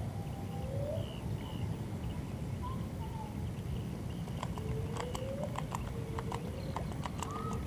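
Short rising animal calls repeat every second or so over a low steady background, with a run of quick sharp clicks in the second half.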